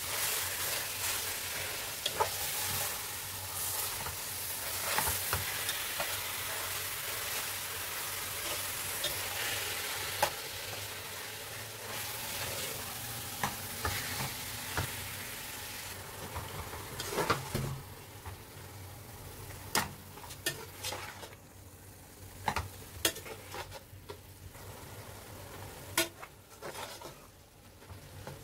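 Minced beef frying in an aluminium pot, sizzling while a metal spoon stirs and breaks it up, the spoon clicking and scraping against the pot. The sizzle is loud for about the first seventeen seconds, then dies down, leaving mostly the sharp clicks of the spoon.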